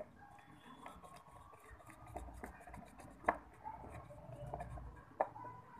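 A thin utensil stirring a sticky glue mixture in a stainless steel bowl, scraping and rubbing with scattered small clicks and a few sharper taps against the metal.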